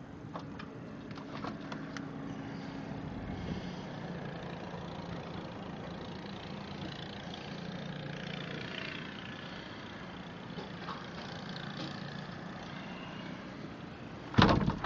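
A motor engine running steadily, its hum stepping down in pitch a few times. There is a sharp, loud thump near the end.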